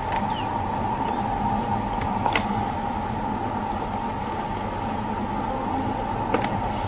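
Steady hum and low rumble of a running vehicle, with a few faint clicks.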